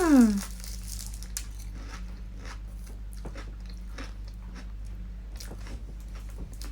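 Close-up chewing and crunching of a Portuguese custard tart's flaky pastry crust, with scattered small crunches. A short falling vocal hum of enjoyment opens it.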